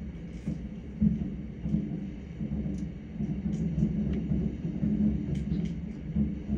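Distant fireworks booming: a continuous low rumble with repeated dull thuds, the strongest about a second in and again around five seconds.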